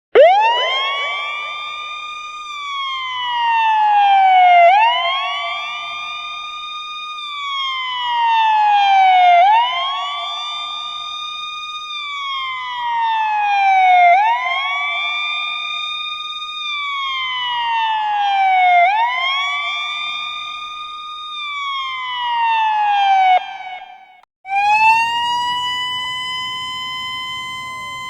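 Police car siren wailing, rising quickly in pitch, holding, then sliding slowly down, about once every five seconds. It cuts off near the end, and after a short break a second siren rises and holds a steady high note.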